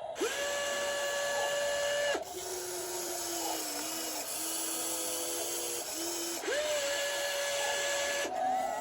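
Small electric motors of a toy RC excavator whining as it works. Each run starts with a quick rise in pitch and then holds steady for about two seconds, with a lower, wavering motor whine between the two higher runs.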